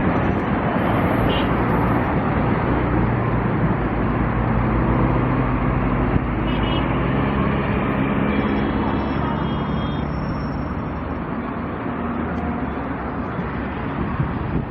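Jet airliner engines running, a loud steady rumble with a faint low drone, easing slightly in the last few seconds, with wind buffeting the microphone.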